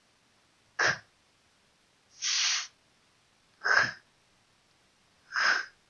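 A woman sounding out isolated Spanish consonants without vowels: three short, sharp puffs of breath like stop consonants, and about two seconds in a half-second hiss like a held fricative.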